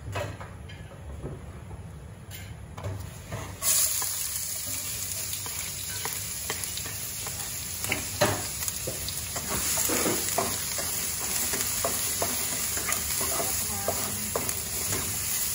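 Chopped red onion dropped into hot oil in a nonstick wok, the sizzle jumping up suddenly about four seconds in and then holding steady. A spatula stir-fries the onion, its strokes scraping and tapping against the pan over the sizzle.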